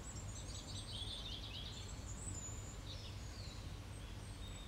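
Birds chirping in the background over a steady low hum, with short high chirps scattered throughout.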